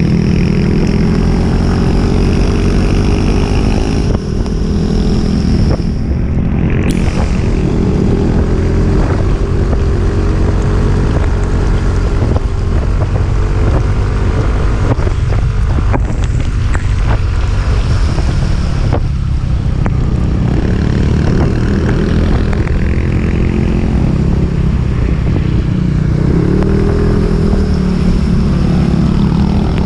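Motorcycle engine running under load on an uphill ride, its pitch rising and falling with the throttle, over a steady rushing noise.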